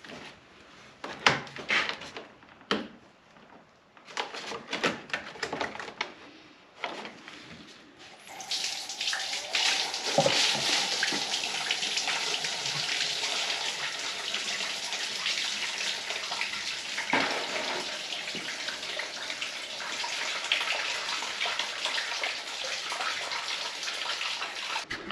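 A few clicks and knocks of hand-tool work on the Jeep's front frame rail. About a third of the way in, engine coolant (antifreeze) starts pouring out in a steady splashing stream that runs on to the end.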